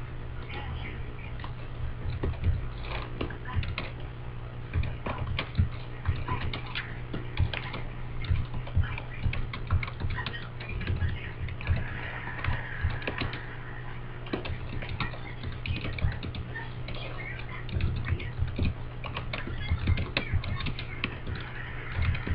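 Typing on a computer keyboard: a quick, irregular run of key clicks as a sentence is typed, over a steady low hum.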